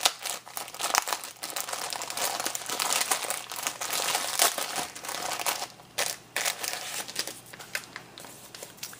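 Packaging crinkling as it is handled and opened to take out a paper-craft album, a dense irregular crackle that thins out over the last few seconds.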